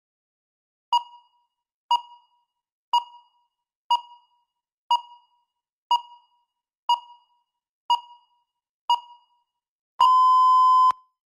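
Electronic countdown-timer beeps: nine short beeps one second apart, then a single longer beep lasting about a second.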